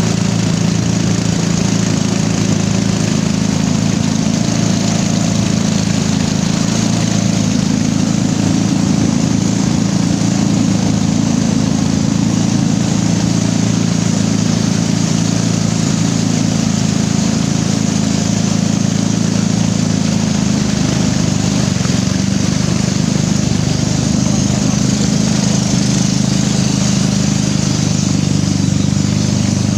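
A small boat engine running steadily under way, an even low drone with a hiss of water and wind above it.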